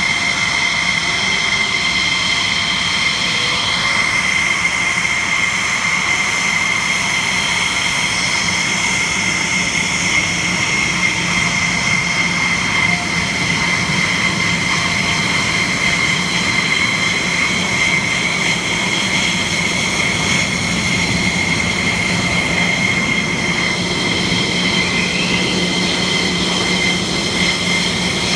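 F-16 fighter jet engines running at taxi power: a steady, high-pitched turbine whine over a low hum.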